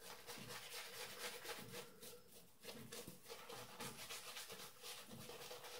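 A Kent BK8 badger shaving brush is swirled over a lathered face, making faint, quick swishing strokes of bristles rubbing through soap lather, about three or four a second with short pauses.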